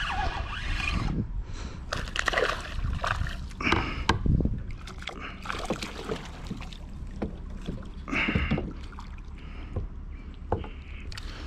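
A hooked chain pickerel splashing and thrashing at the surface beside a plastic fishing kayak, with water sloshing against the hull and irregular knocks and rustles from the gear in the boat.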